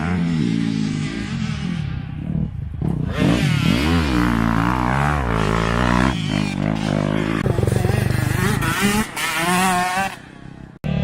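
Dirt bike engine being ridden hard, its revs rising and falling again and again through the gears, with a quieter, lower-revving stretch near the end.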